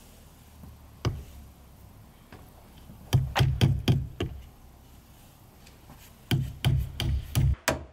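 Larch roof shingles being nailed to the roof battens with a shingler's hatchet: one blow, then two quick runs of five or six sharp knocking blows.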